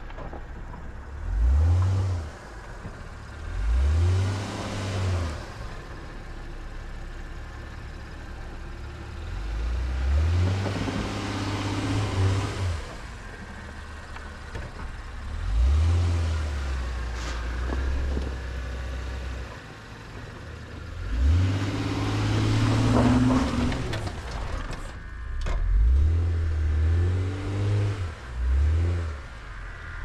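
Honda Passport's V6 engine revving up in short rising surges every few seconds, about seven times, between stretches of steady low running as the SUV crawls over a deeply rutted dirt trail.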